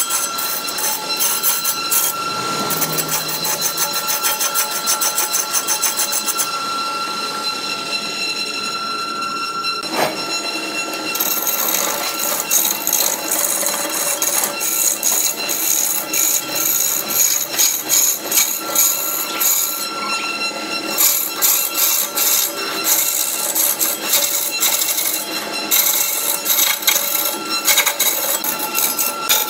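Wood lathe spinning a large wooden blank while a hand-held turning tool cuts and scrapes along it: a continuous rough, rasping cutting noise. The sound changes abruptly about ten seconds in.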